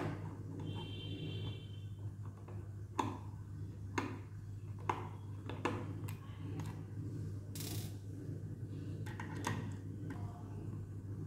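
Small screwdriver working the tight cover screws of a Seagate hard disk drive: scattered sharp metallic clicks and ticks as the bit seats and turns in the screw heads, a second or so apart, with one brief hiss about two-thirds through, over a steady low hum.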